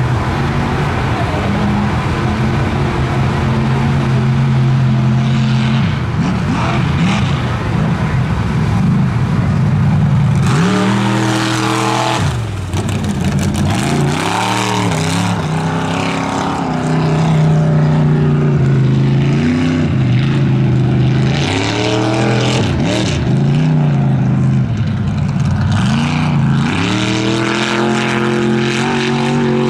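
Mud race truck's engine running hard: a steady engine note for the first ten seconds or so, then revving up and falling back again and again as the truck races down the dirt track.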